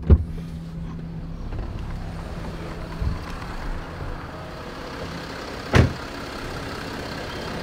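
Range Rover Sport's engine idling steadily, with a sharp thump right at the start and another about six seconds in.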